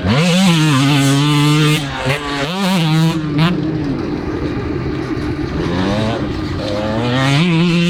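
Husqvarna two-stroke dirt bike engine revving hard while being ridden. Its pitch climbs sharply at the start, dips and picks up again around two to three seconds in, and rises once more near the end.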